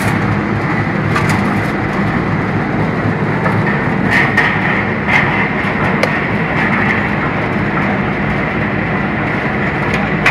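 Straw briquette machine running steadily under load while extruding briquettes. It makes a loud, continuous mechanical drone with a low hum and a few sharp clicks scattered through it.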